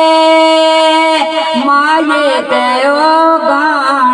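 A man singing a Hindko mahiya folk song into a microphone, holding a long note for about a second and then winding through quick ornamented turns in pitch.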